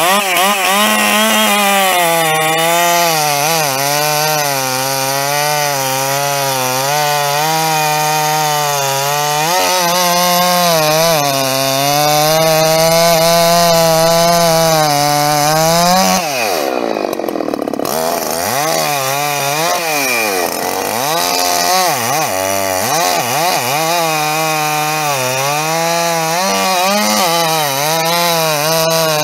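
Gas chainsaw cutting crosswise through a thick log, the engine held at high revs under load, its pitch wavering as the chain bites. About sixteen seconds in, the revs drop sharply and then climb back up as the cut goes on.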